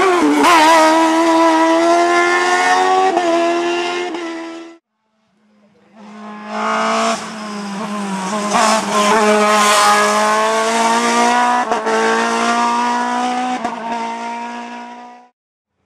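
Race-car engines at high revs. The first car passes and its engine note falls away, then cuts off sharply about five seconds in. After a brief silence a second sports prototype's engine comes in, its revs rising and dropping in steps through the gears, and it cuts off sharply near the end.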